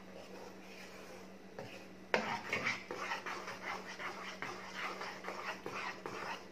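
Wooden spatula stirring thick, hot mango pulp in a pan: rhythmic wet scraping strokes, with a sharp knock of the spatula against the pan about two seconds in, over a steady low hum.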